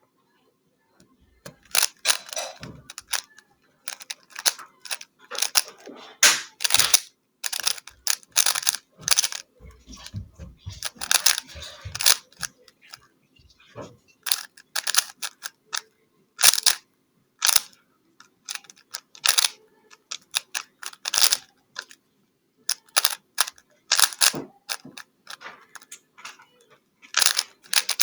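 A 3x3 Rubik's Cube being turned fast during a timed solve: bursts of rapid plastic clicking and clacking as the layers are turned, with short pauses between move sequences.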